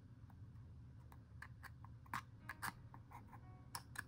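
Faint, irregular light clicks and taps of small craft pieces being handled, over a low steady hum.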